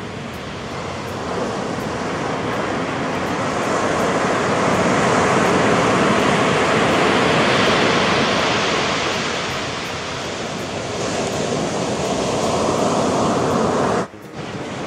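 Atlantic surf breaking and washing up the shore. It swells to a peak mid-way, eases off, then builds again with the next wave, and cuts out for an instant near the end.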